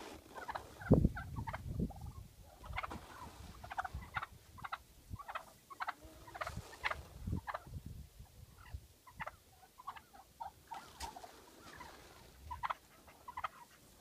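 Domestic fowl calling: many short, scattered clucks and chirps. There is a low thump about a second in.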